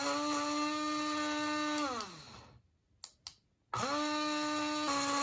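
BlendJet rechargeable portable blender motor running with a steady whine for about two seconds, then winding down to a stop as it churns a thick chutney mix with little water. Two sharp clicks of its button follow, and the motor starts up again near the end.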